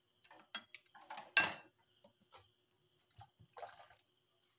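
Dishes being washed in a stainless steel sink: a run of clinks and knocks as a bowl and plate are handled, the loudest about a second and a half in, then a short rubbing sound of sponge scrubbing near the end.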